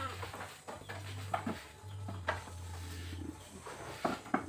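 Goats in a pen: the end of a goat's bleat right at the start, then scattered light knocks and scuffs of movement, a few sharper ones near the end. A low hum comes and goes underneath.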